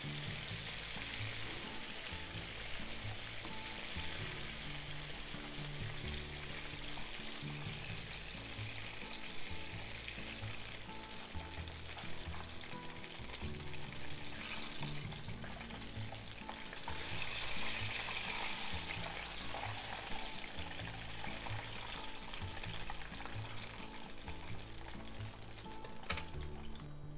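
Tofu blocks deep-frying in hot oil in a small pan: a steady sizzle and bubbling, the tofu now crisp and lightly browned. Background music with low sustained notes plays underneath.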